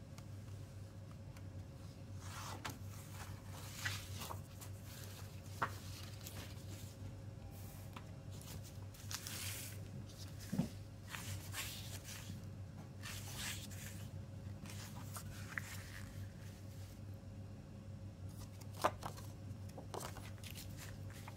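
Hands handling a plastic CD jewel case and its paper booklet and inserts: scattered light plastic clicks and taps with short paper rustles and swishes, over a steady low hum.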